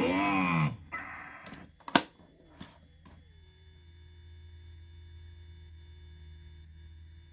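Circuit-bent Tyco Blue's Clues toy refrigerator glitching through its small speaker: a brief warped, pitch-bent voice fragment, a few sharp clicks about two seconds in, then a falling tone that settles into a steady electronic drone over a low hum.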